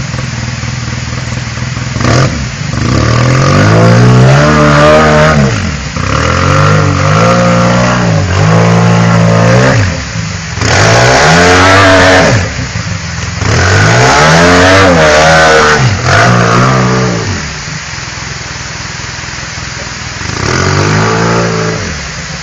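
Off-road vehicle engine revved again and again under load as it climbs, each rev rising and falling in pitch. It settles back to idle, then gives one more rev near the end.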